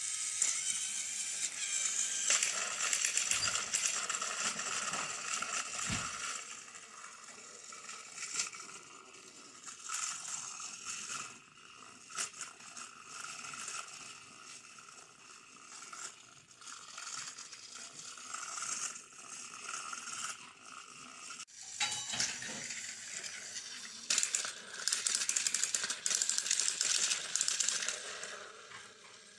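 Small electric motors and plastic gearboxes of battery-powered toy train engines whirring and rattling as two engines push nose to nose against each other on plastic track. It is louder for the first ten seconds or so, drops back, then rises again a few seconds before the end.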